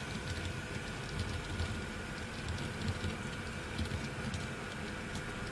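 Model freight train rolling past on layout track: a steady low rumble of metal wheels on rail, with scattered light clicks and a faint steady tone.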